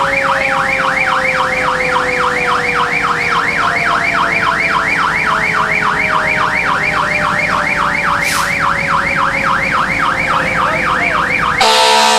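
Fire apparatus electronic siren in yelp, whooping up and down about three times a second, over a lower steady siren tone slowly falling in pitch. Shortly before the end it cuts abruptly to steady horn-like tones and a hiss.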